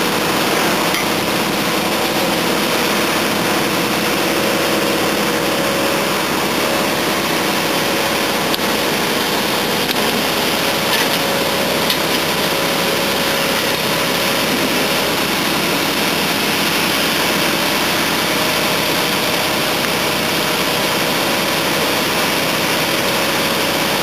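Asphalt paver's engine running steadily under a constant broad noise while the machine lays asphalt.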